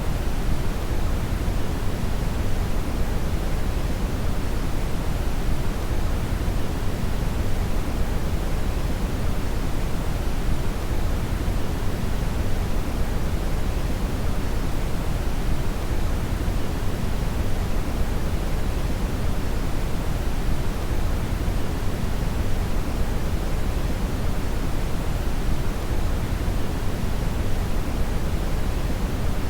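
Brown noise: a steady, unchanging hiss weighted heavily toward the low end, like a deep rumble.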